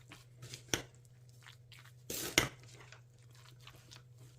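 A ladle stirring a thick macaroni salad of macaroni, chicken and mayonnaise, making soft wet squishing and scraping sounds. About two seconds in comes a louder scrape ending in a sharp knock of the ladle.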